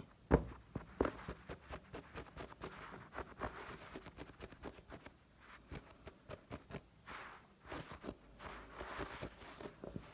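Close handling noise: scattered clicks, taps and rustling near the microphone, with the sharpest click about half a second in.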